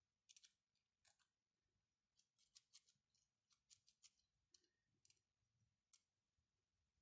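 Faint, irregular light clicks and taps of small 3D-printed plastic parts knocking together as a mechanical counter's digit wheels are fitted by hand.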